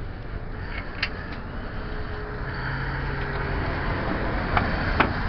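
Steady low rumble of a motor vehicle or road traffic that grows louder about halfway through, with a few light metallic clicks from hand tools and nuts during the strut installation.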